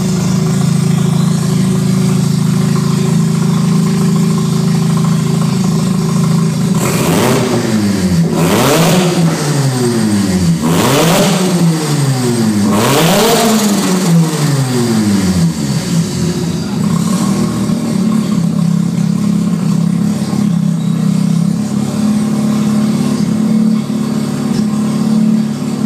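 Tuned 450 hp Mazda RX-7's twin-rotor rotary engine idling, then blipped four times in quick succession about a third of the way in, each rev rising sharply and falling back, before settling back to a steady idle. The engine is running on its first start.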